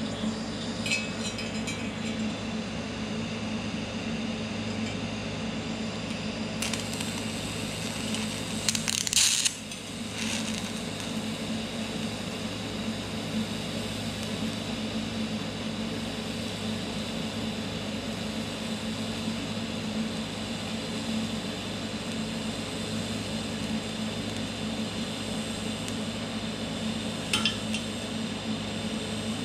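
Scratch-start DC TIG welding at 95 amps on a Vulcan OmniPro 220: a steady arc over the welder's hum, with a brief louder crackle about nine seconds in and a few faint clicks near the end.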